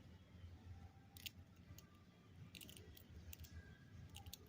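A squirrel cracking and chewing a peanut shell: faint, irregular sharp cracks, a few in quick clusters.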